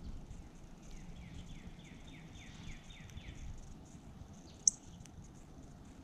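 A songbird sings a run of about ten quick down-slurred whistled notes, about four a second, over low outdoor background noise. A single sharp click comes about four and a half seconds in.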